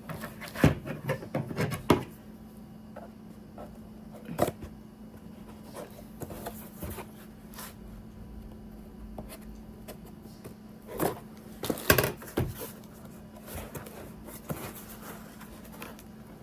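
Packaging being handled and pulled at while trying to open a new Stanley mug: scattered knocks, clicks and rustles, busiest in the first two seconds and again around eleven to twelve seconds in, over a steady faint hum.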